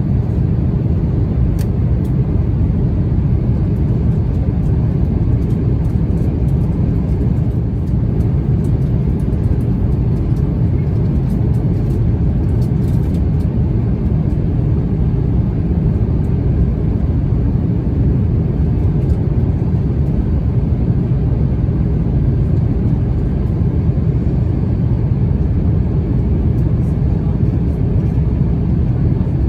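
Airbus A350-900 cabin noise in cruise: a steady low rumble of airflow and the Rolls-Royce Trent XWB engines, unchanging throughout.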